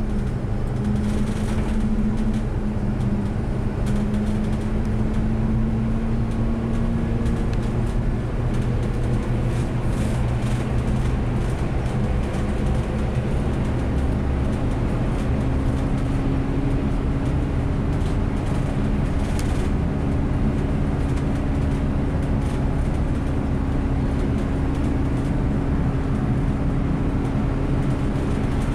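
Bus driving along a road, heard from on board: a steady drive noise with road and tyre rumble and a humming tone that moves to a slightly higher pitch about halfway through.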